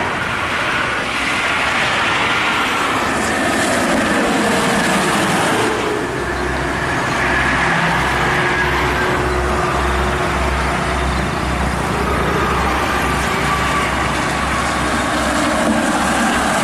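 Highway traffic: big intercity coaches passing at speed, a steady rush of tyre and engine noise, with a low pulsing rumble added from about six seconds in.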